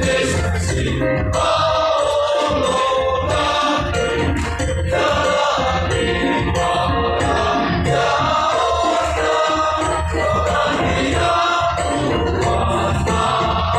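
A mixed choir singing a sacred song in sustained harmony, over a steady low accompaniment.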